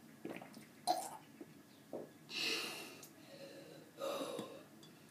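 A boy's harsh, breathy exhales and gasps in several separate bursts, the longest about halfway through, as he reacts to the sour taste of lemon juice he has just drunk.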